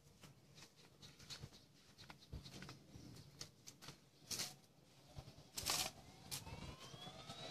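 Scattered faint clicks and a few short knocks. Near the end, the Devil 380 RC helicopter starts to spool up with a rising whine.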